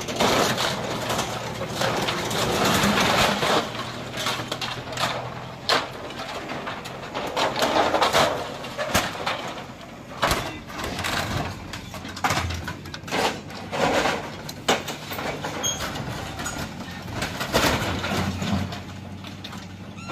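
Bulldozer demolishing structures: its diesel engine runs steadily under repeated crashes, knocks and clatter of breaking material, with voices mixed in.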